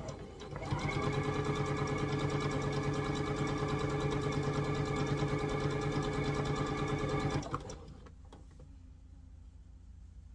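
Electric sewing machine stitching at a steady speed for about seven seconds with a fast, even stitch rhythm. It starts about half a second in and stops abruptly, followed by a few faint clicks.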